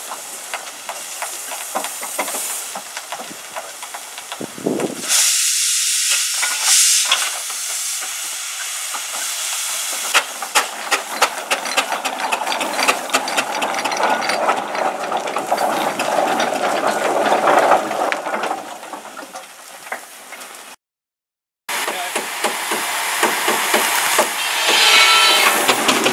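Ruston Proctor steam traction engine hissing and chuffing as it drives forward under steam, with a rapid run of exhaust beats and a louder burst of steam hiss about five seconds in.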